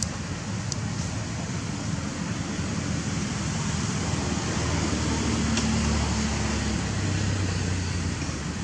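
Steady outdoor background noise, with a low hum that grows louder about four seconds in and fades near the end, and a few faint ticks.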